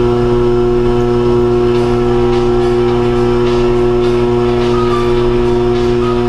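Electric pottery wheel motor running at speed with a steady, even hum of several held tones while the wheel head spins.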